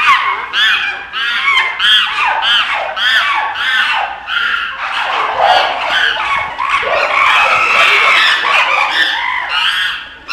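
Chimpanzees screaming during a squabble: a rapid series of loud, high, arching screams, about three a second, that run together into near-continuous screaming in the second half.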